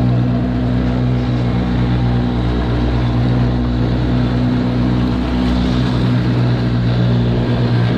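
Outboard motor of a small inflatable skiff idling steadily, a low even hum that dips briefly about five seconds in.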